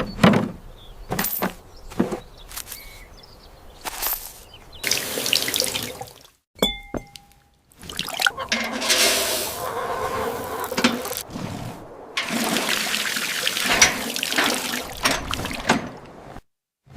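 Water running and pouring, heard in several separate stretches broken by short gaps, with a few light knocks in between.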